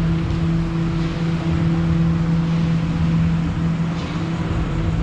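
A motor running steadily, a constant-pitched hum over a low rumble.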